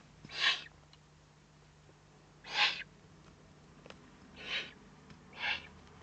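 Eurasian eagle-owl chicks giving short, raspy, hissing begging calls, four in all, the last two about a second apart, as they beg for food at the nest.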